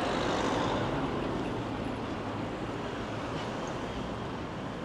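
Street traffic: cars driving past on the road, a steady wash of engine and tyre noise that is loudest in the first second and then eases a little.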